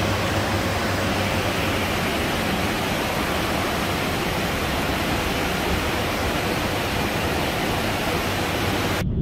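Steady rushing of the Reuss, a fast mountain river running over rocks, an even noise that holds level throughout.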